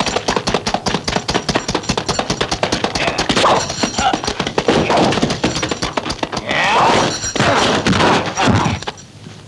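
Martial-arts film fight sound effects: a rapid, continuous run of dubbed punch and block impacts, several a second, with a few shouted cries among them.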